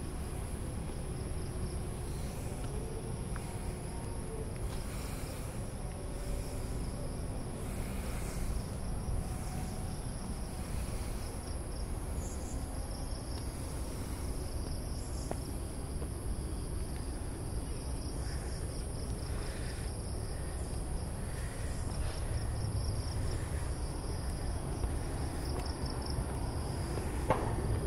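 Evening insects, crickets among them: a steady high-pitched whine with a rapidly pulsing trill beneath it, over a low rumble. Faint regular footsteps come about every second and a half.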